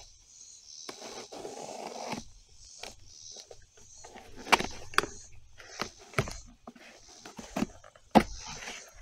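A small knife slitting the packing tape on a cardboard box and the flaps being pried open: scraping and rustling of tape and cardboard, broken by several sharp clicks and knocks, the loudest just after eight seconds in.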